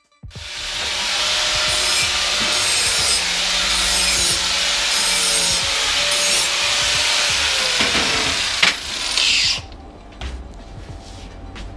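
Angle grinder working stainless-steel exhaust tubing: a loud, harsh grinding over the motor's wavering hum as it takes the load. Near the end the motor slows and the grinding stops, leaving quieter clinks of metal being handled.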